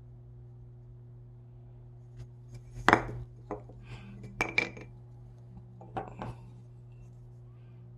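Small hard wooden knocks and clicks as a carved wooden puppet head and small wooden parts are handled against a wooden workbench, the loudest about three seconds in. A steady low hum runs underneath.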